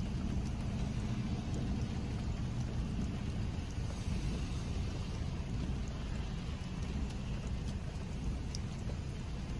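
Rain falling on a car, heard from inside the cabin, over the steady low rumble of the car's idling engine.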